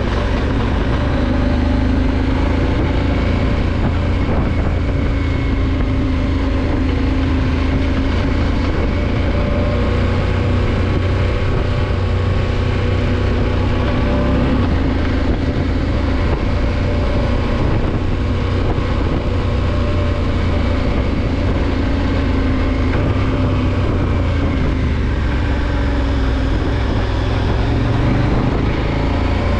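Motorcycle engine running steadily while riding a dirt trail, its note rising and falling a little with the throttle over a constant rush of noise.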